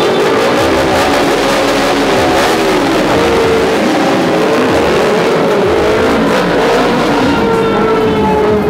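Several Honda sport motorcycles revving and pulling away together, their engine notes rising and falling and overlapping.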